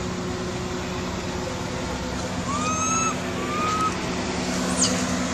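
A motor running steadily with a low hum. About halfway through come two short whistled calls, and near the end a quick high falling chirp.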